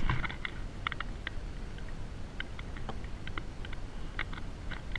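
Fishing reel clicking in short irregular ticks as line is reeled in against a hooked trout, over a steady low rumble.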